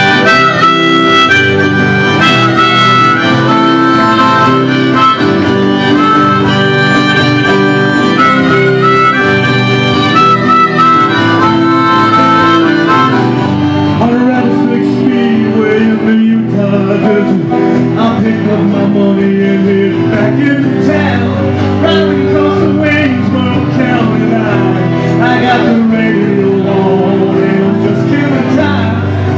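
Live rock band with a harmonica solo played into a microphone over acoustic and electric guitars.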